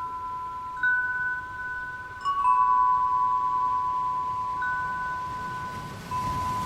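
Wind chimes ringing: a few clear notes struck one at a time, about every one to two seconds, each held long and overlapping the next. A soft rushing sound swells near the end.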